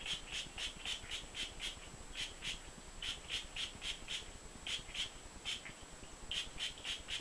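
Handheld trigger spray bottle spritzing water onto hair in runs of short hissing squirts, about three to four a second, with brief pauses between runs.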